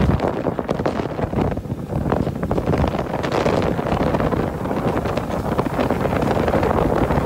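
Strong wind buffeting the microphone on a boat moving fast over the sea, a loud ragged rushing noise.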